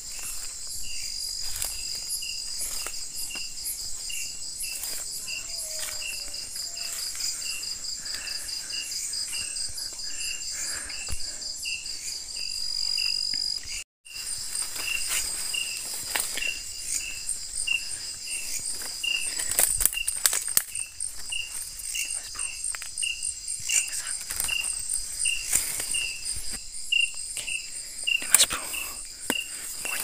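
Night chorus of crickets and other insects: steady high trilling with one chirp repeating about twice a second. Short clicks and rustles of brush are heard over it.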